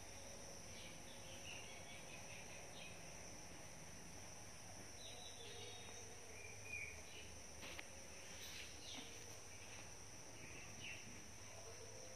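Quiet background ambience: a faint, steady high-pitched hiss with a few faint, short chirps scattered through it.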